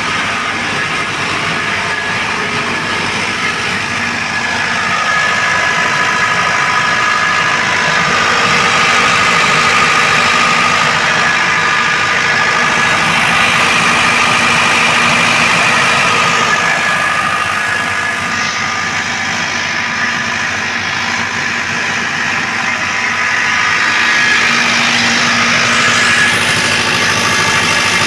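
Tsuzumi TDG 62.5 kVA silent-canopy diesel generator, with a four-cylinder turbo 4108ZD engine, running steadily: an even engine drone with a high whine over it, a little louder after about five seconds.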